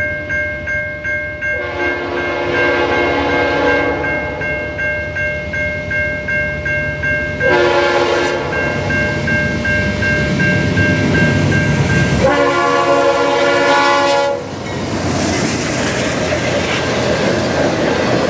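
Norfolk Southern freight locomotive's air horn sounding several long chord blasts as the train approaches, over a bell ringing in a steady pulse. From about 14 seconds in the horn stops and the train passes close by, with the rush and clatter of autorack cars rolling over the rails.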